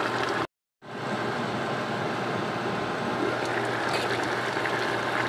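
A pot of vegetables in coconut milk simmering with a steady bubbling hiss, which drops out for a moment about half a second in. Near the end, coconut milk is poured from a glass container into the pot.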